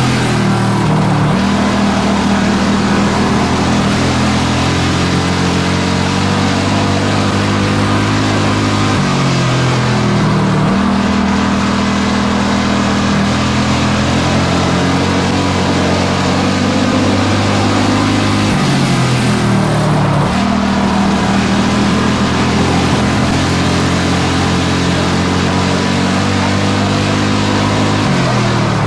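In-car sound of a pure stock race car's engine running hard around an oval, its pitch dipping as the driver lifts for a turn and climbing again down the straight, about every nine seconds.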